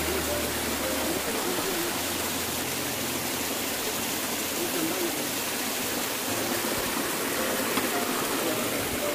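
Small jungle stream rushing over rocks in a steep gully, a steady even rush of water.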